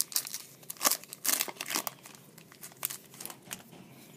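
Foil wrapper of a 2011 Topps Chrome card pack crinkling as it is handled and torn open, in irregular crackles that thin out and fade near the end.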